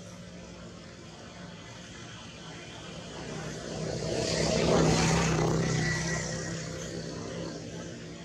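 An engine passing by, growing louder to a peak about five seconds in and then fading away.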